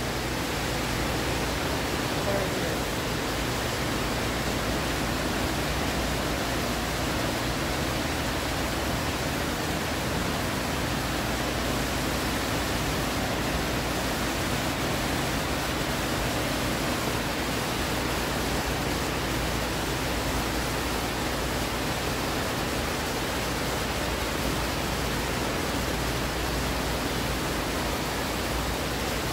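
Steady rush of falling water from an indoor water park's fountains and wall spouts pouring into the pools, an even hiss that does not change.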